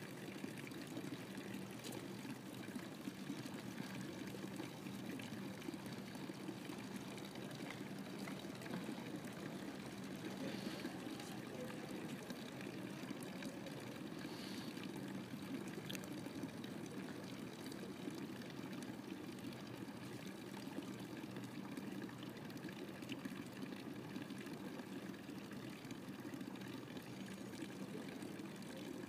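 Water running steadily from a public drinking fountain's spout and splashing into its basin.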